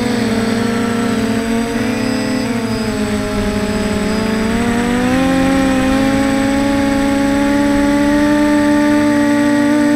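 Multirotor drone's motors and propellers humming, several close tones that waver in pitch as the motors change speed, a little louder and steadier from about halfway through.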